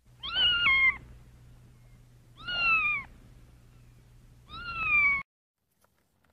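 A domestic cat meowing three times, about two seconds apart, each meow falling in pitch toward its end.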